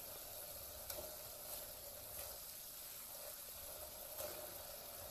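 Gravy simmering in a pan with a faint, steady sizzle, and a few soft knocks as the fried koftas go in.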